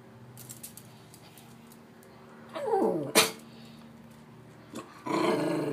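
Chihuahua growling: a growl that falls in pitch about two and a half seconds in and ends in one sharp snort, then louder steady growling from about five seconds in.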